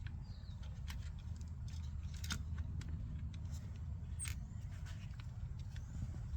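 Scattered small clicks and taps of hands handling an opened VHS cassette, its plastic reels and tape, over a low steady hum.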